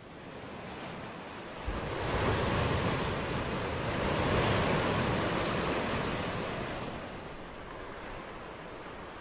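A rushing noise like surf that swells over the first few seconds and then slowly dies away.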